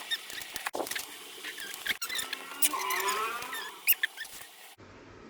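A plastic packet being handled and snipped open with scissors: crinkling, small clicks and short high squeaks, with a run of sliding squeaks about halfway through. The sound drops off abruptly near the end.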